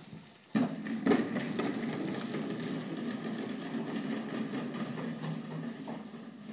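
Electric drive motors of a child's ride-on toy car whirring as it drives, starting suddenly about half a second in and then running steadily.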